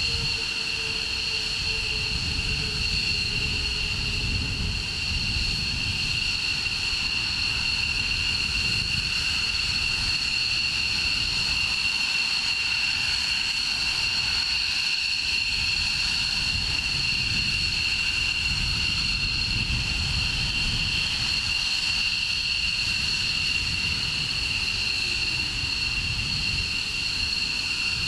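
F-22A Raptor's jet engines idling on the ramp: a steady high-pitched turbine whine with two held tones over an uneven low rumble.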